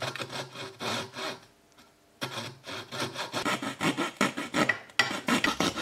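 Coping saw cutting a slot in a thin wooden lid, quick back-and-forth strokes about four or five a second, pausing briefly about one and a half seconds in before sawing on.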